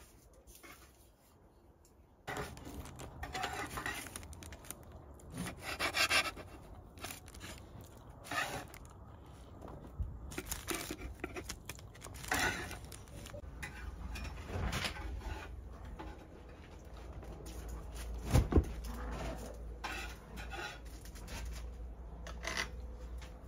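Handling noises of pastries on a metal baking tray: irregular rustles and light knocks, with one sharp click about eighteen seconds in.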